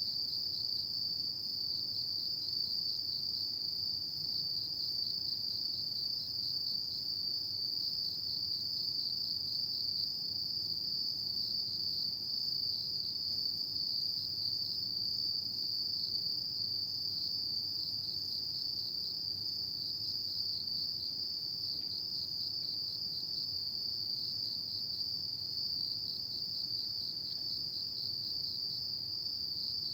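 Chorus of autumn singing insects, a steady high-pitched trilling with a fast pulsing texture that never lets up.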